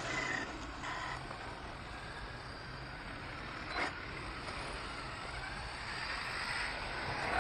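Faint, wavering motor whine of an electric radio-controlled truck driving on the track, over a steady outdoor hiss, with one short click about four seconds in.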